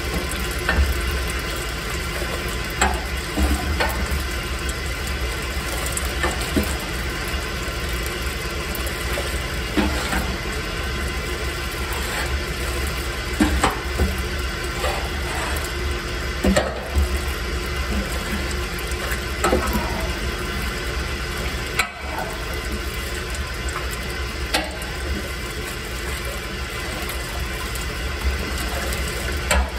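Grain mill running steadily as it crushes malt, a constant low hum under a rustling grind, with scattered short ticks and crackles from the kernels.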